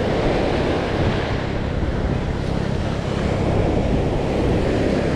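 Wind buffeting the microphone over the steady wash of ocean surf breaking on a sandy beach.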